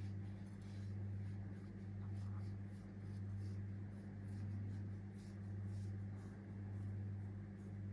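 A steady low electrical hum that swells and fades about once a second, with faint rubbing and light ticks over it as salt is rubbed onto raw quail.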